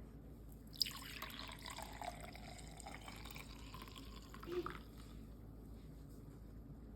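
Water running or pouring for about four seconds, starting with a click just under a second in.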